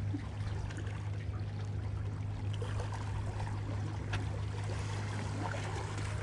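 Seawater washing and trickling against shore rocks, over a steady low hum, with a few faint ticks.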